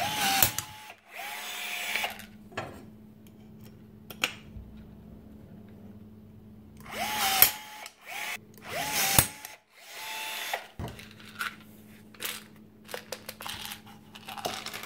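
Milwaukee M12 2550 cordless rivet tool setting 1/8-inch stainless steel pop rivets. Its motor whines in several short runs of about a second each, in two groups, and two sharp cracks come as mandrels snap. Light clicks of the tool being handled follow near the end.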